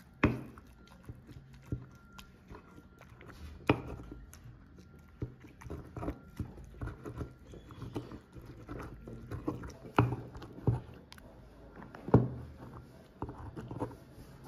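Stone pestle crushing and grinding roasted tomatoes and chiles in a volcanic-stone molcajete: wet crushing with irregular knocks of stone on stone, a few sharper knocks standing out.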